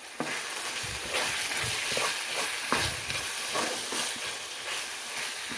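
Sliced onions and turkey sausage frying in a pan, sizzling steadily while a wooden spoon stirs and scrapes through them with repeated short knocks.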